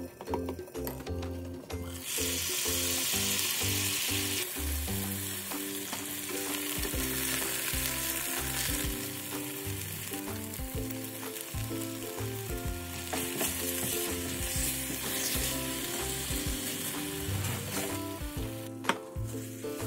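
Chicken pieces sizzling in oil in a frying pan. The sizzle starts about two seconds in and is loudest at first, over background music. A single sharp tap comes near the end.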